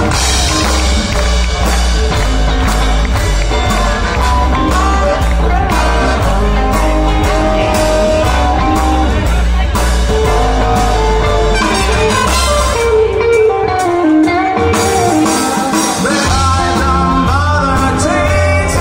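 Live swing big band playing rock and roll, with a horn section, upright bass and drums behind the lead melody. About two-thirds of the way through the bass drops out for a couple of seconds while a line slides down, then the full band comes back in.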